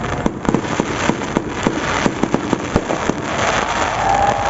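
Fireworks going off: a steady run of sharp, irregular crackling pops, several a second.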